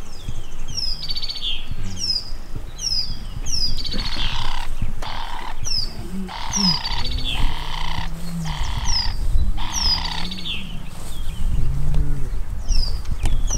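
A bird calls over and over in short, high chirps that fall in pitch. In the middle come several harsh rasping bursts, each under a second long, with some low wavering sounds beneath them.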